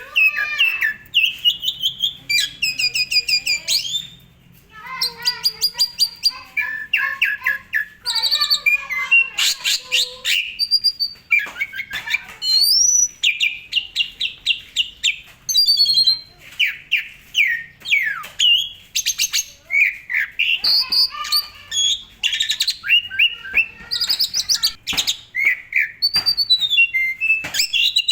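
Asian pied starling (jalak suren) singing a long, varied song of rapid trills, harsh chattering notes and short whistles, with a brief pause about four seconds in.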